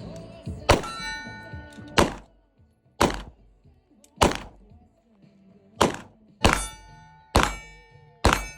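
A series of about eight gunshots, roughly one a second, some followed by a lingering ringing tone.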